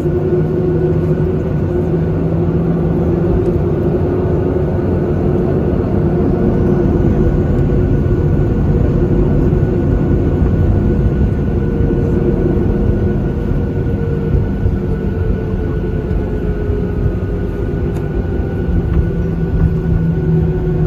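Steady cabin rumble of a Boeing 737-800 taxiing after landing, its CFM56 jet engines running at low thrust with a few held hum tones that drift slowly in pitch.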